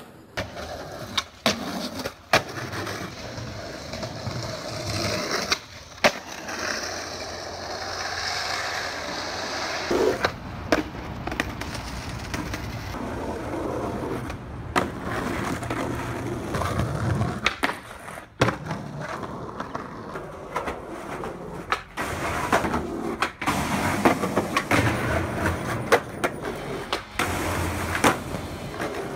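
Skateboard wheels rolling over pavement, with sharp pops and board slaps from tricks being attempted and landed. The sound breaks off and restarts several times, as one take follows another.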